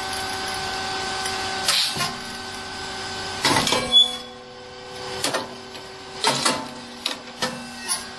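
Grain-popping rice cake machine running: a steady machine hum with sharp mechanical clunks as the press cycles. About three and a half seconds in comes a louder, sharp burst with a short hiss as a batch of triangular grain chips is popped and released from the heated mold.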